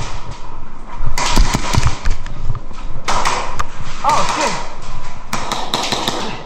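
Airsoft pistols firing: sharp snaps in quick runs, about a second in, again around three seconds, and a cluster near the end.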